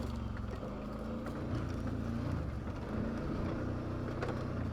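ATV engine running at low, fairly steady revs as the quad creeps along a rough trail, its pitch wavering slightly, with a few faint clicks.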